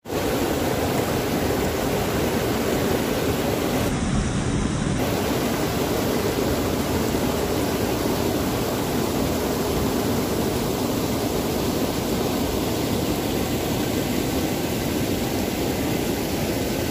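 Water pouring over a wide, low weir and churning into the pool below: a steady rushing sound.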